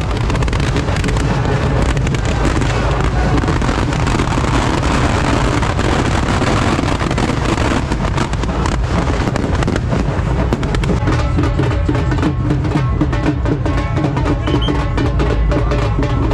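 Drum-heavy festival music with firecrackers crackling and bursting as a Dussehra effigy packed with fireworks burns. The sharp cracks come thicker in the second half.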